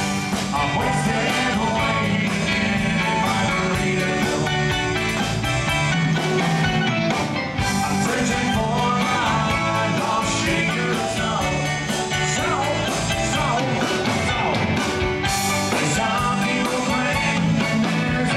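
Live band playing an upbeat rock song with electric guitars, drum kit and keyboards, over a steady beat.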